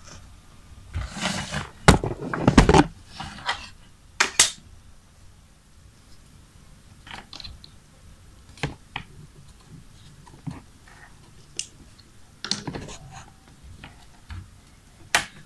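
Handling noise of an opened plastic charger case: a cluster of loud rustles and knocks in the first few seconds as it is picked up, then scattered sharp clicks and scrapes as a metal screwdriver tip probes the cable connector's locking clip inside the charger.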